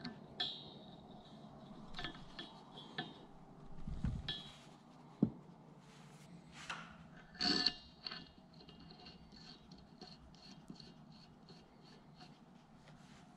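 Scattered metal clinks and taps, some ringing briefly, as a forged connecting rod and its cap are handled and fitted onto a crankshaft journal. A sharper knock comes about five seconds in, and a run of small quick ticks fills the second half.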